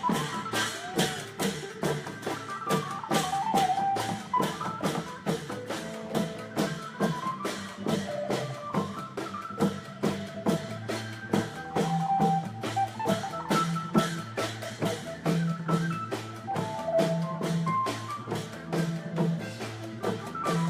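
Isan long-drum (klong yao) ensemble playing a fast, steady drum rhythm, with a wavering melody over it.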